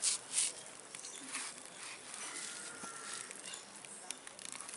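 Fingers peeling the thin black skin off a ripe palmyra palm fruit: soft crackling and tearing, with two louder crackles right at the start.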